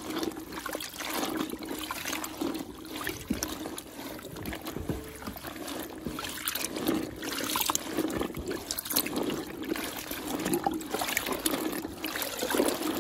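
Wet tie-dyed fabric being squeezed and moved around by a gloved hand in a bucket of dye water: irregular sloshing and trickling of water with small wet squelches.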